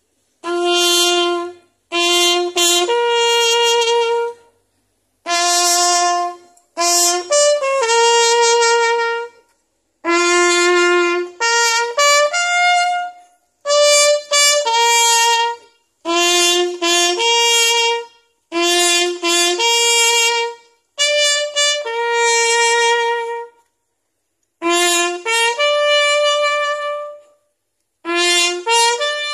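A solo trumpet plays a slow ceremonial call for a moment of silence. It goes in short phrases, mostly two short notes followed by a longer held note a step up, with pauses between phrases.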